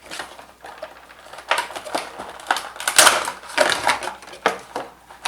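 Funko Pop cardboard box being opened and its plastic insert handled: a quick run of clicking, scraping and crinkling handling noises, loudest about three seconds in.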